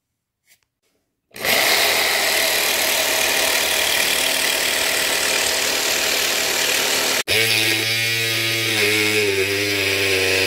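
A Black & Decker jigsaw starts about a second in and cuts through a dried gourd's hard shell with a loud, even, buzzing noise. After a sudden break, a MicroMark gourd saw runs with a steady humming whine as it cuts into the gourd.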